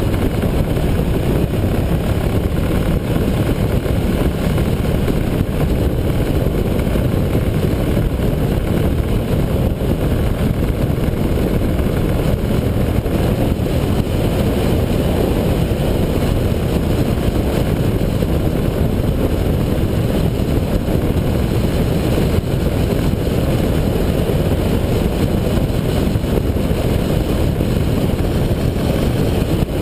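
Steady wind rush over the microphone of a camera on a motorcycle riding at road speed, with the motorcycle's engine running beneath it.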